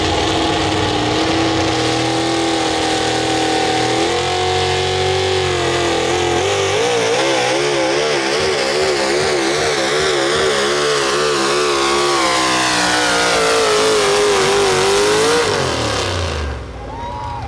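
Modified four-wheel-drive pulling truck's engine at full throttle, its revs climbing at first, then wavering rapidly up and down through the middle of the run, then falling away sharply near the end as the pull finishes.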